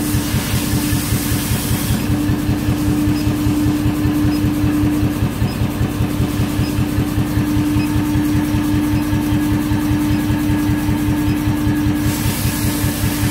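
Anyang air power hammer running at idle, its motor and compressor making a fast, even pulse with a steady hum beneath.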